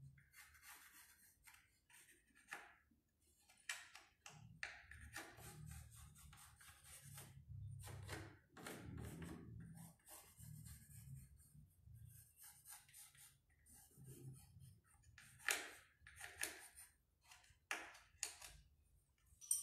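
Faint scratching of a pencil sketching on the wooden top of a cable spool, in short irregular strokes. A few sharper clicks come near the end.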